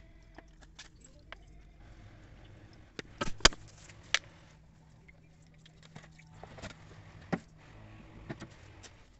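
A few sharp clicks and knocks of metal parts being handled, as the aluminium transmission case in its metal basin is touched and moved, the loudest about three and a half seconds in, over a faint steady low hum.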